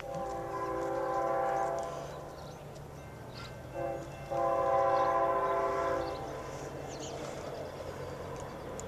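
A freight locomotive's multi-tone air horn sounding, not yet close: a long blast of about two seconds, a brief short blast a couple of seconds later, then a second long blast of about two seconds.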